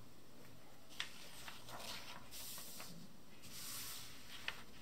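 Faint rustling of paper as a test booklet's page is turned and the sheets are shifted, with a light click about a second in and another near the end.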